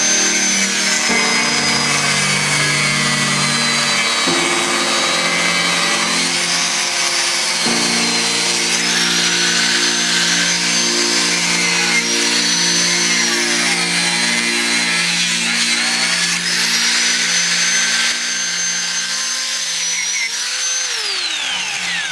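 Jigsaw motor driving a saw blade through material, its whine rising and falling in pitch, then winding down near the end as the motor is switched off. Background music with held chords plays underneath.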